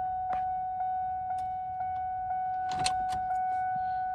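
A 1999–2004 Ford Mustang's warning chime sounding continuously in a steady tone that pulses about twice a second, as with the door open. A few sharp clicks and a rattle come about three seconds in.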